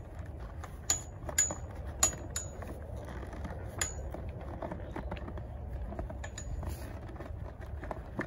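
Light metal clinks of saddle hardware, the buckle and rings, knocking as a stirrup leather is worked and pushed into place: several sharp ringing ticks in the first four seconds and a few softer ones later. A steady low rumble runs beneath.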